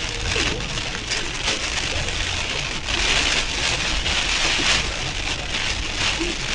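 Rain or wet snow beating steadily on the car with a low road-and-engine rumble underneath, heard from inside the cabin while driving, with a few sharp ticks of drops striking.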